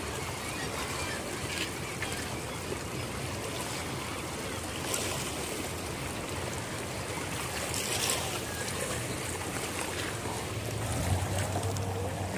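Steady wash of seawater along a rocky shore, with a couple of brief splashes in the middle. Near the end there is a low rumble on the microphone.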